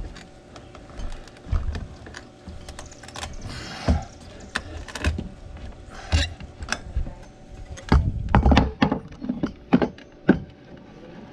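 Claw hammer knocking on a rotten wooden deck board to work it loose: irregular blows a second or so apart, with a run of harder strikes about eight to nine seconds in.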